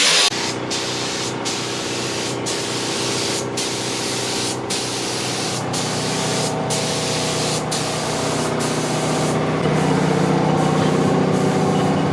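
Air-fed paint spray gun hissing as it sprays, the trigger released briefly about once a second between passes, over a steady low hum.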